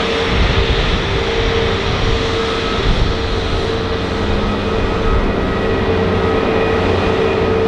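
Jet engines of a Frontier Airlines Airbus A320-family airliner running as it rolls along the ground: a steady, loud engine noise with a held whine.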